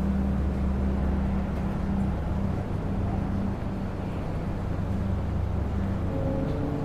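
A steady low hum over a constant background noise.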